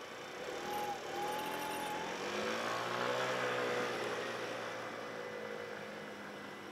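A motor vehicle's engine rising and then falling in pitch over a few seconds, over steady street traffic noise.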